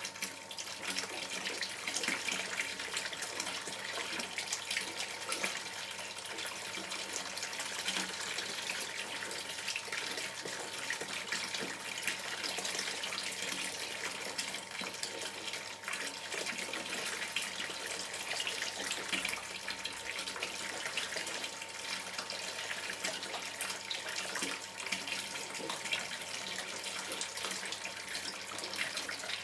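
River water running and gurgling, a steady bubbling wash with no breaks.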